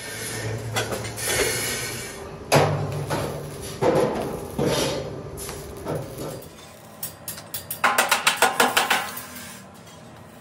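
Hammer blows on sheet-steel bodywork: scattered ringing metal clangs, then a quick run of about eight strikes around eight seconds in.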